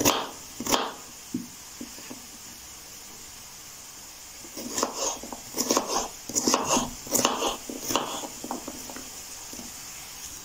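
Knife chopping raw potato into small cubes on a cutting board: two knocks at the start, then a run of quick knocks from about four and a half to nine seconds in.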